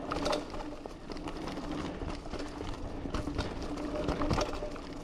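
Giant Fathom 2 hardtail mountain bike descending a rough trail: tyres rolling over dirt and rocks, with frequent sharp knocks and rattles from the bike over bumps and a steady buzzing tone that comes and goes.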